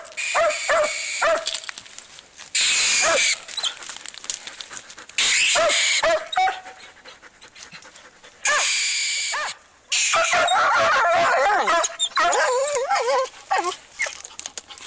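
Spitz-type hunting dogs barking and yelping excitedly at a mink hidden in a log, with a run of wavering whining from about ten seconds in. Several loud bursts of noise cut across the barking.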